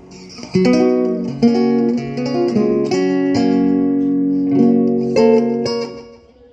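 Two acoustic guitars strumming chords, the opening of a tonada. The strumming starts about half a second in and dies away near the end.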